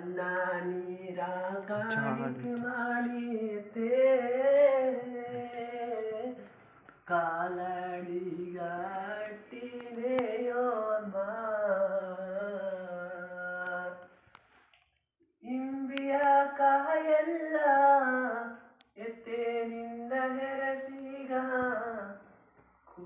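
A young man singing solo without accompaniment, in long, slowly bending phrases with short breaks between them and a pause of about a second near the middle.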